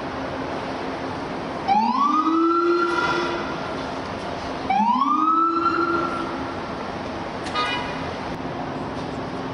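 A boat's horn sounds two blasts about three seconds apart, each sliding quickly up to pitch and then holding for about a second and a half. A short high chirp follows near the end, over a steady background rumble.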